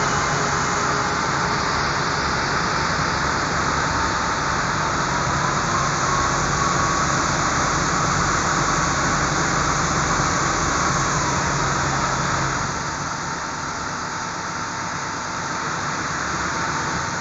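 Ferry boat's engine running steadily under a constant wash of water and wind noise; the engine's low hum drops away about thirteen seconds in, leaving mostly the wash.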